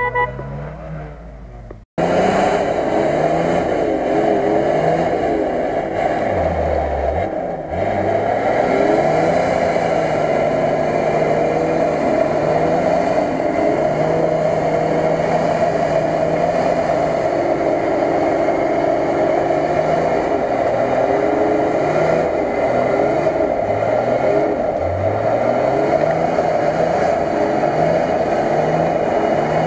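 Engine of a 4x4 SUV revving up and down under load as it grinds through deep mud, with the steady churn of tyres and mud. The sound cuts in abruptly about two seconds in.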